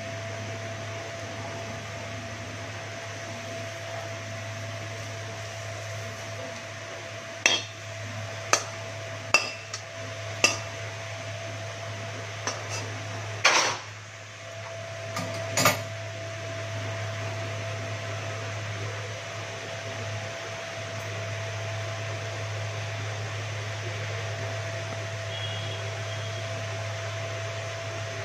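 Serving spoon clinking and knocking against the cooking pan and serving bowl as the cooked kochur shak is dished out: about ten sharp knocks in the middle of the stretch, the loudest about halfway through, over a steady background hum.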